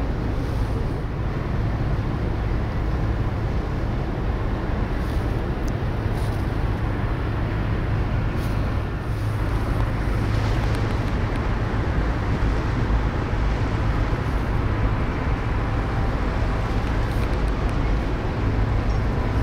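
Steady low engine rumble with a constant drone under an even wash of outdoor noise.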